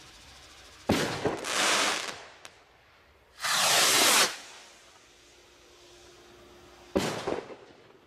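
Sidewinder shell firework rocket. A sharp crack and hiss about a second in, then a loud rushing hiss as the rocket climbs, then a sharp bang with a brief crackle as its shell bursts near the end.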